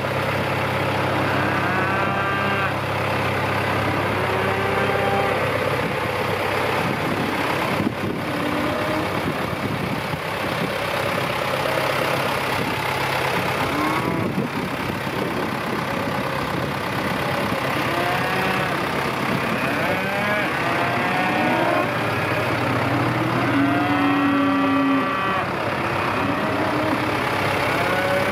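Cattle mooing again and again, the calls overlapping and coming more often in the second half, over the steady idling of a 1983 John Deere 2040S tractor's diesel engine.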